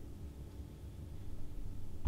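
Quiet room tone: a low rumble with a faint steady hum and no distinct events.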